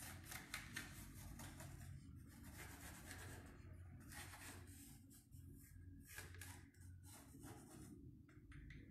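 Faint scratching of a pencil sketching on the bare wooden top of a cable spool, in short irregular strokes.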